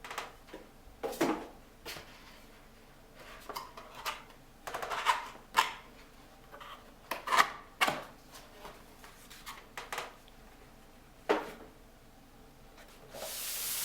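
Cardboard box and packaging being handled: a string of irregular knocks, scrapes and clicks, then a longer rustle near the end.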